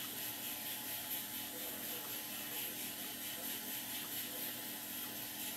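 Steady background hiss with a faint steady low hum; the knife slicing the soft avocado makes no distinct sound.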